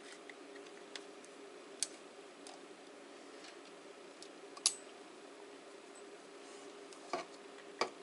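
Light clicks and taps of a Crosman 2240 air pistol's metal and plastic parts being handled as the handle and tube are lined up for a screw: about half a dozen short sharp clicks, the loudest about halfway through, over a steady low hum.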